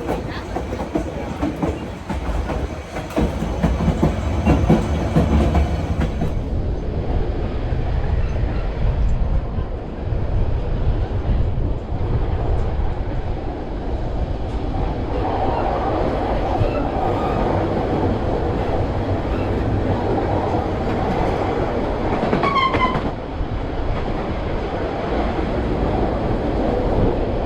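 Narrow-gauge passenger train rolling along the track: a steady rumble of wheels on rails with clickety-clack. A brief high squeal near the end.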